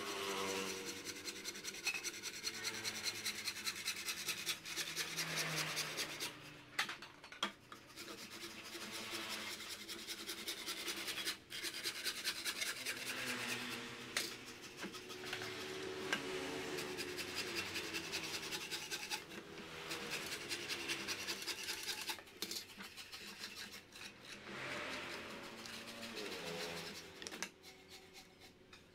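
Hand saw cutting through a bamboo pole with fast back-and-forth strokes, in runs of a few seconds with short pauses between them; the sawing stops near the end.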